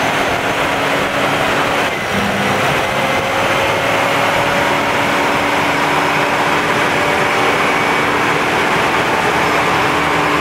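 Truck engine running steadily at a raised idle while loaded by three high-output alternators charging the 16-volt and 12-volt audio systems; the load nearly bogs it, so the idle is kicked up. A steady, dense mechanical noise with a faint whine that slowly rises in pitch.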